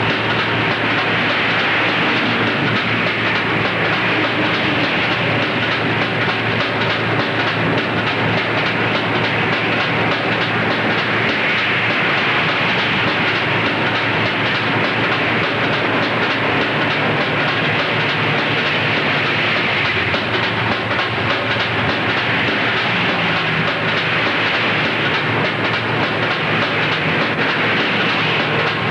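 Helicopter engine and rotor running steadily: a loud, even noise with a fast rhythmic chatter.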